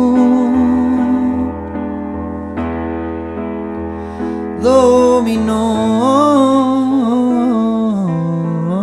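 Male voice singing in Spanish over electric-piano chords from a Roland Fantom keyboard. A sung note holds at the start and gives way to chords alone, then the voice comes back about halfway through with a wavering, ornamented line on the word 'dominó'.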